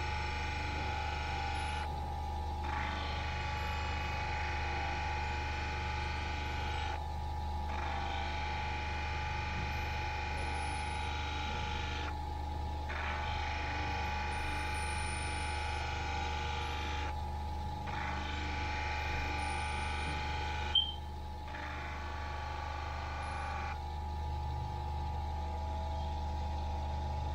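Motor-driven lap wheel spinning with a steady hum, while a crystal ball pressed against the wet wheel makes a high whine in stretches of about five seconds, breaking off briefly four or five times. A sharp click comes about three-quarters of the way in, and the whine stops near the end, leaving only the wheel's hum.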